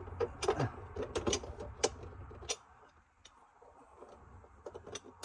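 Garbage disposal mounting hardware being handled and fitted under a sink: a quick run of small clicks and knocks over a low rumble, then after about two and a half seconds only a few scattered clicks.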